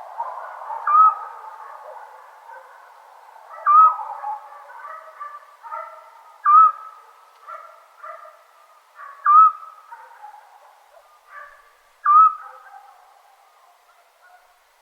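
Eurasian scops owl calling: a single short, clear whistled note repeated at a steady pace, about every two to three seconds, five times here. Fainter, lower notes sound between the calls.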